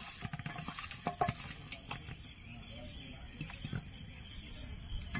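A hand working salt and turmeric into small whole bhola fish in a stainless steel bowl: faint wet handling sounds, with a few sharp clicks in the first two seconds, then quieter.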